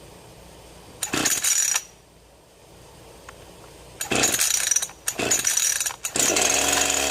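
Echo CS-490 50cc two-stroke chainsaw being pull-started: three short bursts as the recoil starter is pulled and the engine sputters, then about six seconds in it catches and settles into a steady idle.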